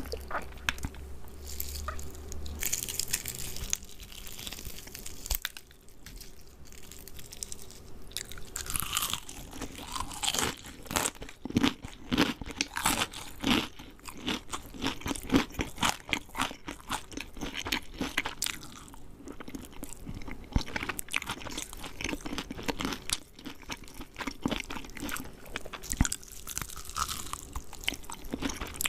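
Close-up crunching and chewing of KFC fried chicken: the crispy coating crackles with each bite and chew, in uneven bursts that are sparse for a few seconds early and thickest through the middle and again near the end.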